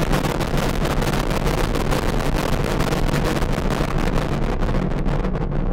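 Noise-music drone: a dense, crackling wall of noise over a low rumbling hum, its top end dulling away near the end.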